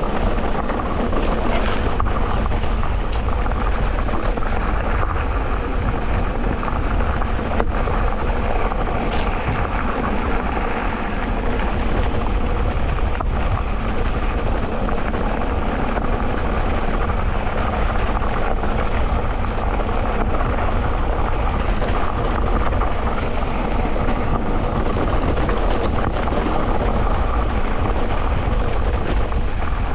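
Continuous ride noise of an electric mountain bike on a dirt trail: tyres rolling over the ground, with a few sharp knocks.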